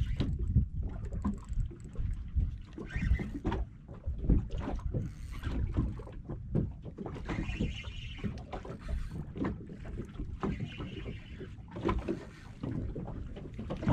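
Sea water lapping and knocking against a small boat's hull, with wind buffeting the microphone. A steady low rumble is broken by many irregular dull knocks, and short hisses come every couple of seconds.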